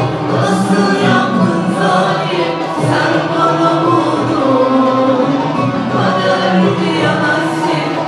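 Turkish classical music performed by a choir singing with instrumental accompaniment.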